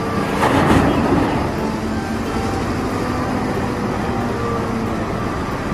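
Caterpillar 992G wheel loader's diesel engine running as it tips a bucket of dirt into a dump truck, with a louder rush about half a second in.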